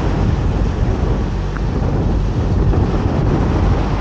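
Strong wind buffeting the microphone as a heavy, steady rumble, over the wash of a rough sea churning and breaking against a stone sea wall.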